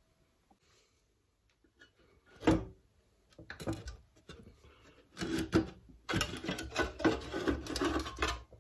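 Steel cover panel of a Suffolk Super Colt cylinder mower being worked loose and lifted off the frame: a knock, a few light clicks, then a run of irregular metal scraping and rubbing in the second half.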